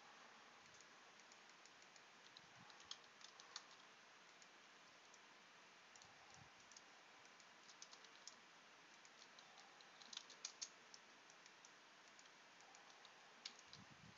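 Faint computer keyboard keystrokes in short, scattered clusters of clicks over a low hiss.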